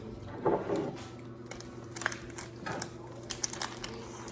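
Small, close clicks and taps from eating and handling snacks, with one louder brief sound about half a second in.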